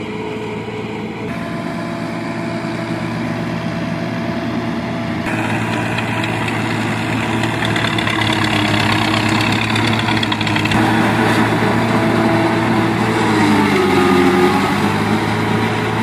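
Tractor diesel engine running hard while driving a PTO-powered maize silage harvester that cuts and chops the crop and blows it into a trailer. A steady engine drone with a chopper rush; the engine note sags and recovers near the end, and the sound shifts abruptly a few times between shots.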